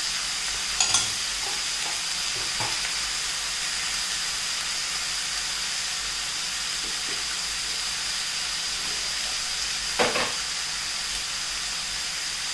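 Mutton pieces, browned onions and ginger garlic paste sizzling in oil in a kadai on a low gas flame: a steady frying hiss. Two brief knocks come about a second in and near the end.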